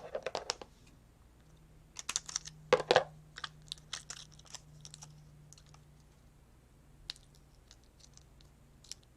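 Small clicks and crinkles of craft materials being handled on a tabletop, in clusters at the start and about two to three seconds in, then scattered light ticks.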